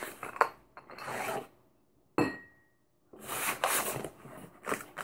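A box being handled and opened: rubbing and scraping strokes, a few clicks, and a single sharp knock about two seconds in.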